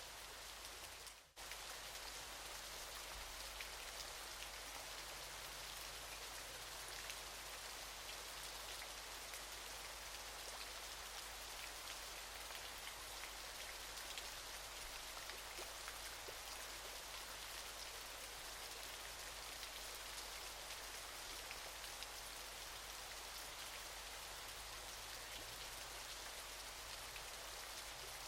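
Waterfall: a steady, even rush of falling water with fine spattering ticks. It drops out briefly about a second in.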